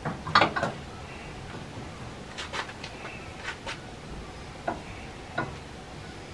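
A glass bowl set down on a stainless-steel grill shelf with a short clatter about half a second in, then a few scattered light clicks and taps as the fish-patty mixture is handled.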